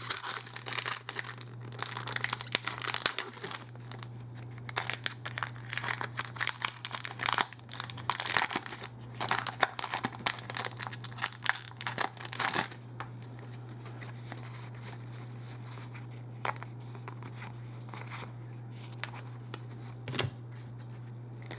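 A trading-card booster pack's wrapper being torn open and crinkled for about twelve seconds, then only occasional soft clicks. A steady low electrical hum runs underneath.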